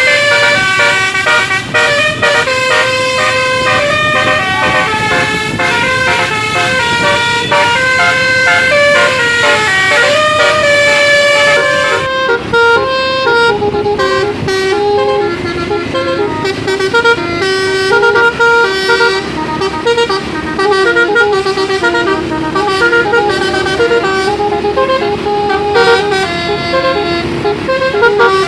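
Bus telolet horns (basuri-style multi-tone air horns) playing fast melodies of stepped notes. About twelve seconds in, a lower-pitched set of horns takes over, one bus's horn tune answering another's.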